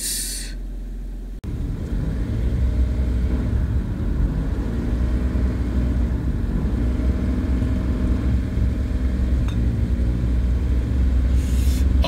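Car cabin noise: a quiet steady hum while the car stands still, then an abrupt cut about a second and a half in to the louder, steady low rumble of engine and tyres as the car drives along.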